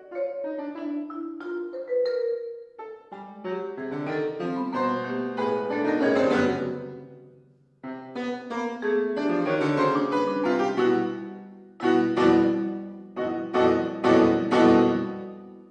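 Grand piano and tuned mallet percussion playing contemporary chamber music. Dense clusters of notes build to a loud swell, die away almost to nothing about eight seconds in, then start again with loud repeated struck chords that fade near the end.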